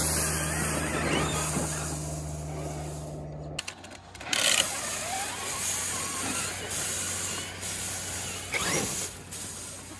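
Electric radio-controlled monster truck driving on a dirt track, its motor whine rising and falling with the throttle over the hiss of tyres on dirt, with louder bursts about four and a half seconds in and again near the end. A low steady hum underneath cuts off suddenly about three and a half seconds in.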